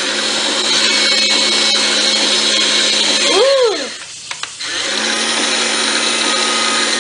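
Electric motors of a battery-powered toy CAT excavator whirring steadily as its boom and bucket arm are raised. The whir stops briefly about four seconds in and then starts again, with a short rising-and-falling tone just before the stop.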